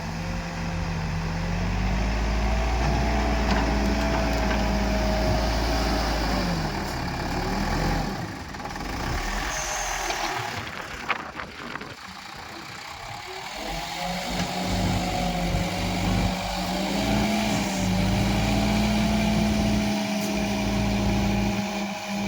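Diesel engine of an Escorts Digmax backhoe loader working as it digs and loads mud, its pitch rising and falling with the load. It eases off for a few seconds in the middle, then picks up again.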